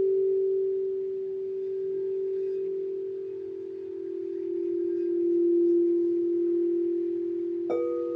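Crystal singing bowls ringing in a long sustained low tone that slowly swells and fades. Near the end a new note is struck sharply and adds a higher ringing tone over it.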